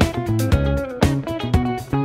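Background music: a guitar-led instrumental with a bass line and a steady beat.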